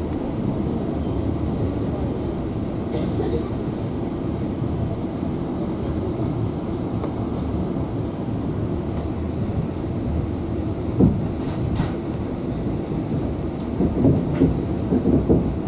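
Passenger train carriage running at speed, heard from inside: a steady rumble of wheels and running gear. A couple of sharp knocks come about eleven and twelve seconds in, then a quick run of knocks near the end, as the wheels pass over rail joints.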